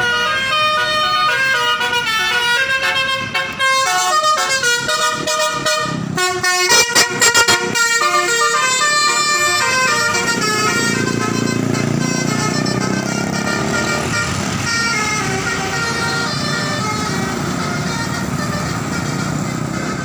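Bus telolet horn, a multi-tone air horn, playing a quick stepped melody of changing notes, with a burst of rapid loud blasts about seven seconds in. From about ten seconds in, the passing bus's engine and tyre noise takes over as the horn tones fade.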